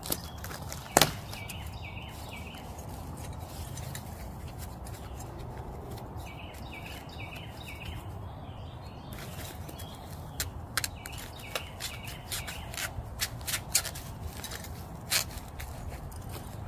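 Plastic clicks and taps as a fog light bezel ring is handled and fitted into place, with one sharp click about a second in and a run of quicker clicks in the second half. A bird chirps in two short runs of repeated notes in the background.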